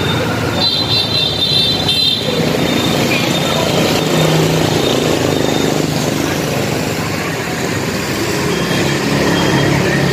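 Steady road traffic noise from passing vehicles, with an engine hum that swells midway and again near the end.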